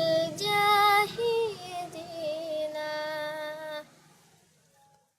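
A child's voice sings an Arabic devotional song, drawing out long, wavering, ornamented notes on a line that praises Abu Bakr. The singing stops about four seconds in and fades to near silence.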